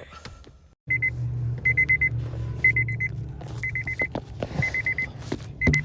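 A Honda Civic's electronic warning chime beeping in quick groups of about four high beeps, roughly once a second, starting about a second in, over a steady low hum with a few knocks.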